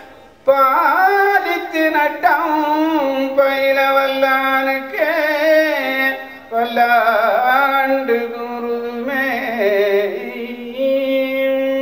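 Carnatic-style devotional song: a solo voice sings an ornamented, gliding melody over a steady lower accompaniment. It breaks briefly about half a second in and ends on a long held note.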